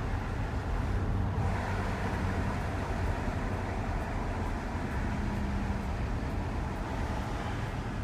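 A moving van's engine and tyre noise: a steady low rumble with a faint engine hum.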